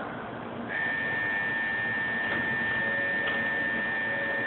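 Shinkansen platform departure bell ringing: a steady, high electronic ring that starts about a second in and holds without a break, signalling that the train is about to leave.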